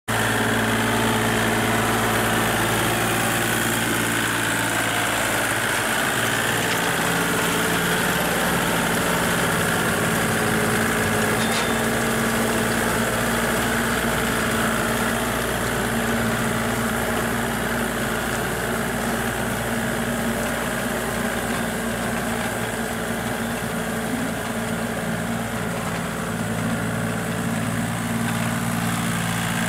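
Kubota compact tractor's diesel engine running steadily under load while pulling a rear rotary tiller through a wet paddy field, a constant low hum with no break.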